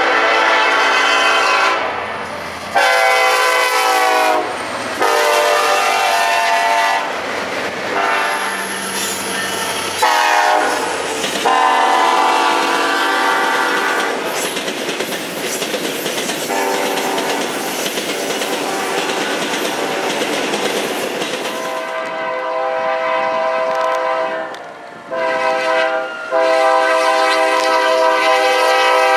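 Diesel freight locomotive air horns blowing a series of long and short blasts, from several different trains in turn. Between and under the horn blasts comes the clatter of a passing train's wheels on the rails.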